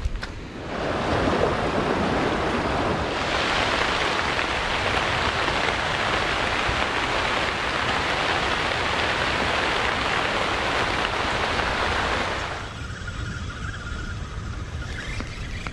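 Steady, even hiss of water, such as rain or a river's flow. It cuts in abruptly about a second in and stops just as abruptly a few seconds before the end.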